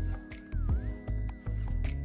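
Electronic background music with a heavy bass beat and a held synth tone.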